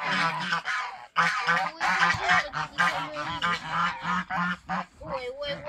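Domestic geese honking and cackling in rapid, overlapping calls, with a brief break a little after a second in.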